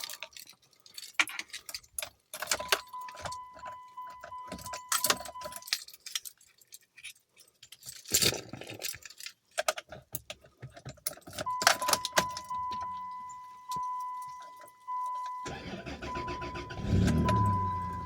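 Keys jangling and clicks in a car, with a dashboard warning chime sounding steadily and then pulsing. About fifteen seconds in, the Chrysler New Yorker Fifth Avenue's engine cranks and catches on a cold start after a snow storm, rises briefly, then settles into a steady run.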